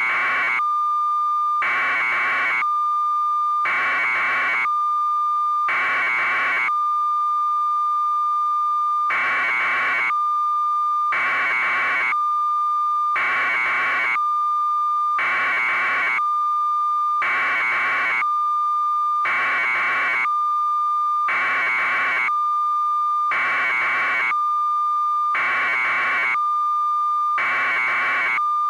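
A steady high electronic tone, joined about every two seconds by a short harsh buzzing pulse, with one longer gap between pulses about a third of the way in.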